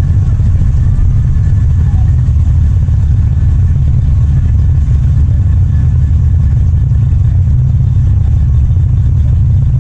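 A steady, loud low rumble of a moving vehicle, with faint voices in the background.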